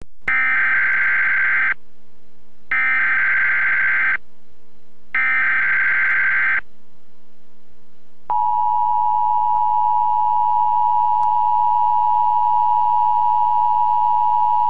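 Emergency Alert System tones. First come three bursts of the SAME digital header, each about a second and a half long with about a second between them. Then, about eight seconds in, the steady two-tone EAS attention signal begins and holds.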